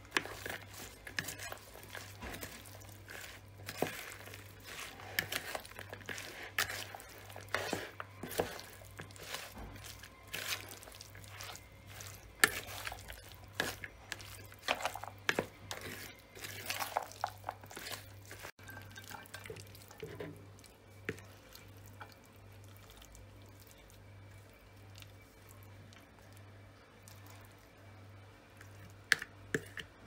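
Plastic serving spoon tossing a wet chopped salad of roasted eggplant, tomato, onion and purslane in a plastic bowl: irregular squelching and scraping, with sharp clicks of the spoon against the bowl. The mixing stops about 18 seconds in, leaving a faint low hum and a few light clicks.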